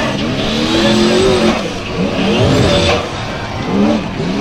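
Formula Offroad buggy's engine revving hard in repeated bursts, its pitch rising and falling several times as the buggy claws up a steep dirt hillclimb with its wheels spinning.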